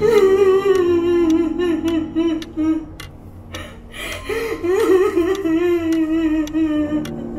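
A woman wailing while she cries, two long wordless wails a second or so apart, each sliding down in pitch over about three seconds. A clock ticks faintly underneath.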